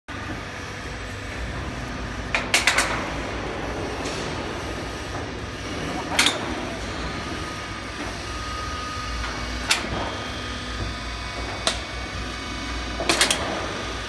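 Hydraulic crimping machine for metal roof sheet at work: a steady low hum from the running machine, broken by sharp metallic clacks at uneven intervals, a quick cluster of several near the start and again near the end, as the dies crimp the corrugated sheet.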